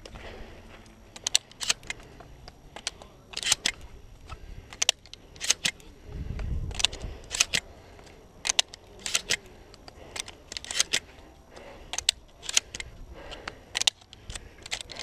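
Pump-action shotgun being reloaded by hand: shells pushed one after another into the tube magazine, a string of sharp, irregular metallic clicks about once or twice a second.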